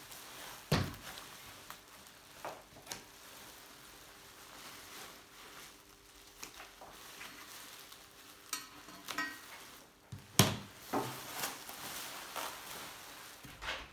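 Handling noises from a steel bicycle frame being moved about: a few scattered knocks and clinks, with a short rattle just before the loudest knock about ten seconds in.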